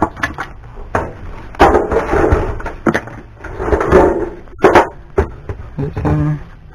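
Irregular knocks and clatter from a flat sound-system unit and tools being handled and set down on a cluttered workbench, with several sharp bangs among rustling scrapes.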